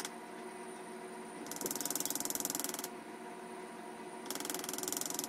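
Two bursts of rapid, even mechanical clicking, like a ratchet: one about a second and a half long, then a shorter one near the end, over a faint steady hum.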